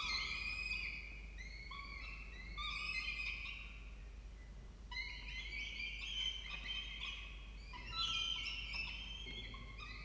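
Peregrine falcon chicks begging while being fed: shrill, repeated arched calls, several overlapping, growing busier about halfway through and again near the end.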